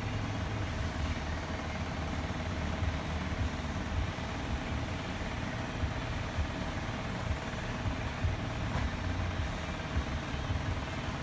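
A steady low mechanical hum of background machinery, with a few faint knocks of handling.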